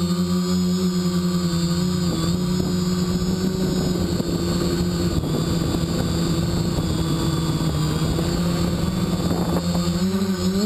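Spider Quad quadcopter's electric motors and propellers running with a steady hum, heard up close from the onboard camera. The pitch rises near the end as the motors speed up.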